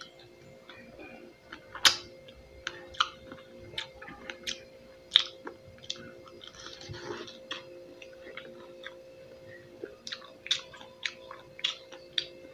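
A person chewing and biting fresh pineapple close to the microphone: irregular sharp, crisp clicks and crunches of the fruit between the teeth.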